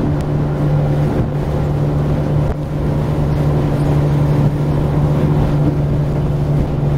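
Speedboat engine running steadily at speed, a constant low drone, with rushing water and wind noise over it.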